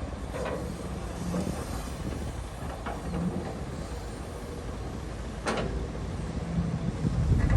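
Cat excavator's diesel engine running with a steady low rumble, broken by a few sharp metallic clanks and a louder thud near the end.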